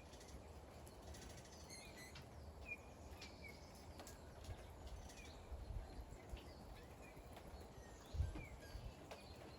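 Faint, short bird chirps scattered throughout, over a steady soft hiss of light rain, with brief low rumbles, the loudest about eight seconds in.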